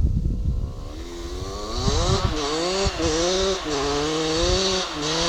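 Husqvarna CR 125 two-stroke motocross bike with a DOMA Racing exhaust, revving hard and getting louder, its note climbing and then dropping several times as it shifts up through the gears.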